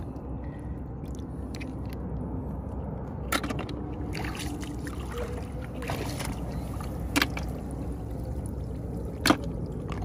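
A hand sloshing and trickling through shallow paddy water among wet rice straw, over a steady low rumble, with a few sharp clicks.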